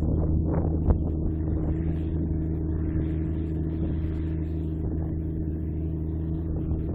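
Case IH Quadtrac tractor's diesel engine running steadily under load while pulling a plough, a constant drone that fades slightly as it draws away. A single sharp click about a second in.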